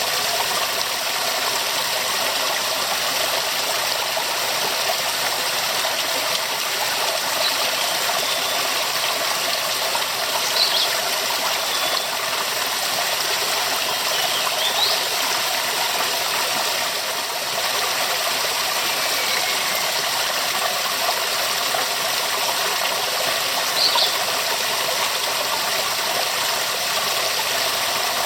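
Waterfall: a steady, unbroken rush of falling water. A few brief, faint high chirps sound over it here and there.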